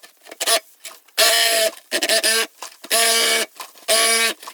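A small power-tool motor run in short bursts, about once a second, each whirring briefly at a steady pitch.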